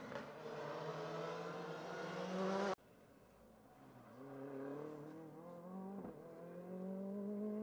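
Rally car engine revving hard under acceleration, its pitch climbing, until the sound cuts off abruptly a little under three seconds in. Then another rally car's engine comes in fainter and climbs in pitch again, with one brief break about six seconds in.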